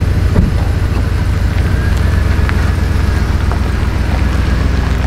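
Large truck towing a bass boat on a trailer rolling slowly over gravel: a steady deep engine rumble with scattered crunches and pops of stones under the tyres.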